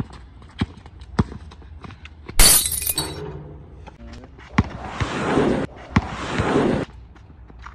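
Basketball dribbled on an outdoor asphalt court, bouncing about every half second to second. About two and a half seconds in comes a loud crash, and from about four and a half to seven seconds a long rushing noise with a couple of sharp knocks.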